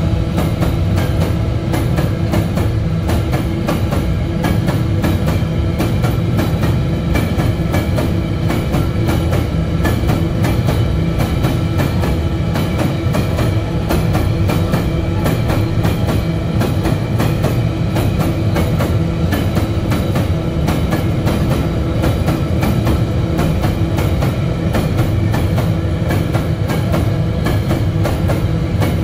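Empty iron-ore gondola wagons of a long freight train rolling past, with a steady, rapid clickety-clack of wheels over the rail joints and a constant rumble.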